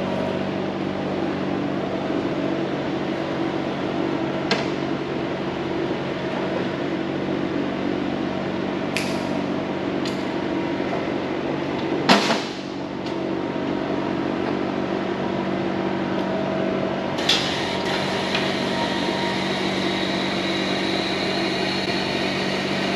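A steady machine hum with several sharp metallic knocks and clanks, the loudest about twelve seconds in, ringing briefly. A faint high whine comes in near the end.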